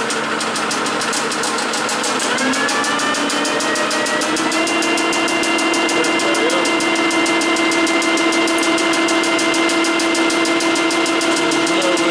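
1956 Herbert No. 4 capstan lathe running under power, its spindle turning with a steady whine and a fast, even rattle. The whine rises in pitch between about two and four seconds in, then holds steady; the old machine's clutch is said to slip very badly.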